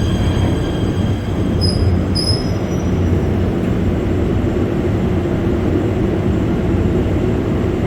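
Steady rumble of a running train, with high steady wheel-squeal tones that fade away over the first few seconds and two short high chirps about two seconds in.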